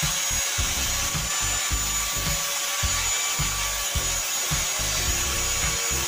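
Small electric grinder's abrasive wheel grinding into a copper pipe: a steady motor whine under the hiss of metal rubbing on the spinning wheel, as the marked spot on the pipe is roughened and cut through.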